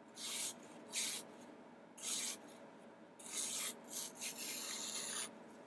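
O1 tool-steel knife blade slicing through a sheet of paper in about six short strokes, the last one the longest: a paper-cutting test of the edge's sharpness.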